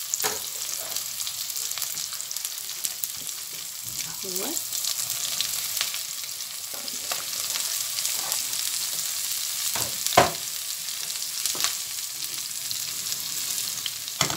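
Sliced onions and bell peppers sautéing in hot oil in a non-stick frying pan, being softened: a steady frying sizzle with a few sharp knocks, the loudest about ten seconds in, as the peppers are tipped in from a cutting board.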